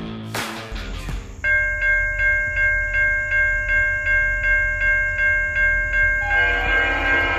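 Music cuts off under a second in, giving way to the low rumble of a diesel locomotive and a bell ringing steadily at about two strokes a second. Near the end a train horn starts sounding over the bell.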